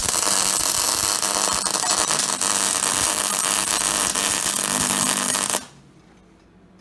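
MIG welding arc crackling steadily as a weld is run on laser-cut metal sculpture parts, stopping suddenly after about five and a half seconds.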